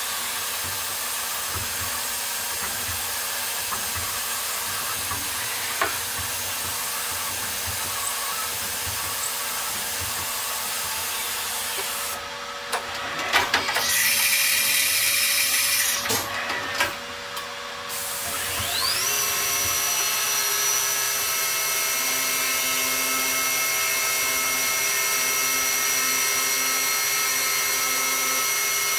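CNC vertical mill cutting plastic handle blanks, a steady machining noise with a fixed tone. About twelve seconds in the cutting breaks off for a few seconds of louder hiss and several knocks. Near twenty seconds a rising whine comes in as the spindle speeds up, and steady cutting with a high whine runs on from there.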